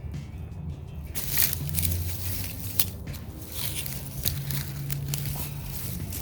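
Digging and handling in loose garden soil during a potato harvest: irregular crunching, scraping and rustling strokes, starting about a second in.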